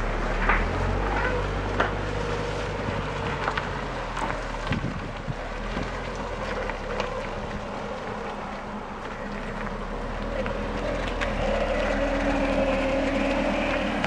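Audi A4 B6 Avant's engine running as the car moves, a steady low hum with scattered light clicks. It grows louder near the end.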